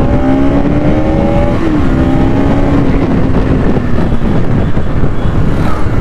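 Bajaj Pulsar NS200 single-cylinder engine heard from the saddle while riding. It holds steady revs, then eases off about a second and a half in, its pitch dropping over the next few seconds, under heavy wind and road noise.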